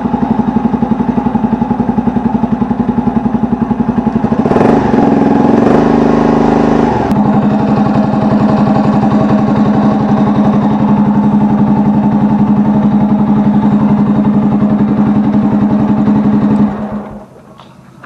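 Bajaj Pulsar's single-cylinder four-stroke engine idling with a fast, even beat. It is revved briefly about five seconds in, then settles back to idle and is switched off near the end. It runs without timing-chain rattle, the chain tensioner having just been reset and tightened.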